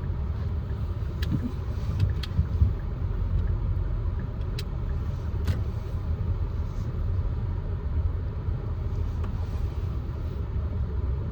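Car's engine and tyres heard from inside the cabin while driving slowly: a steady low rumble, with a few faint clicks.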